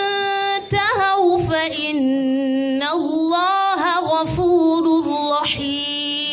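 A woman's voice reciting the Qur'an in a melodic chant, drawing out long held notes with ornamented pitch glides and breaking only briefly about half a second in.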